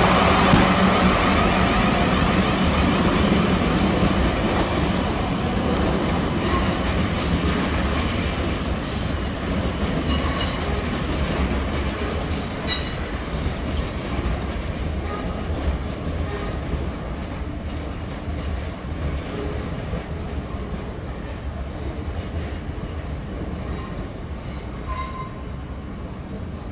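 Siemens Desiro electric multiple unit pulling away, its steady motor hum loudest at first and fading slowly as it recedes. Later come scattered clicks and short high wheel squeals as trains run over the pointwork.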